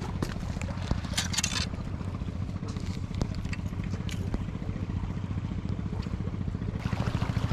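Steady low engine drone, running evenly throughout, with a brief scraping clatter about a second in.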